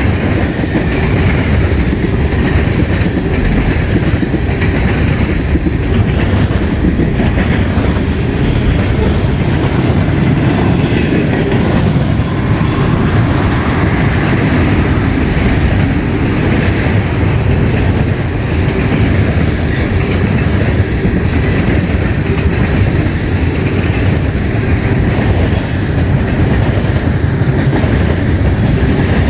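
CN freight train's cars rolling steadily past, a continuous loud rumble of steel wheels on the rails with clickety-clack.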